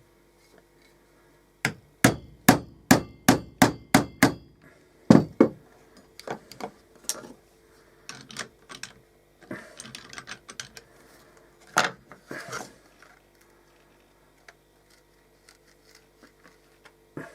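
Hammer blows driving a hole punch through a leather strap: a quick run of about ten sharp strikes, then lighter scattered knocks and taps with one louder knock later on.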